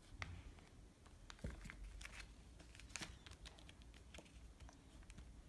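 Faint, scattered ticks and rustles of origami paper being folded, creased and pressed flat by hand.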